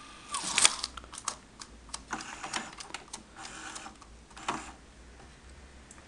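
VHS video player's tape mechanism: a steady whine stops with a slight drop in pitch, then irregular clicking and clattering for about four and a half seconds as the tape tangles in the head.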